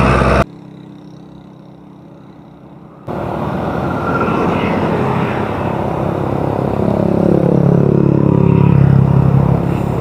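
Traffic noise heard from a moving bicycle, with wind rushing over the microphone. About half a second in, the sound drops suddenly to a faint hum for a couple of seconds, then the rush returns. Near the end a motor vehicle passes close by, its engine note falling slightly in pitch as it goes.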